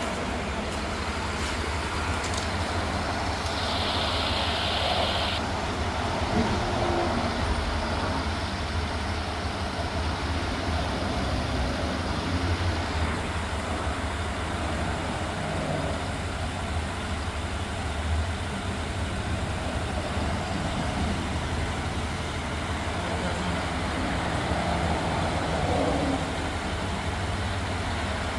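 Toyota Tundra pickup idling with a steady low rumble.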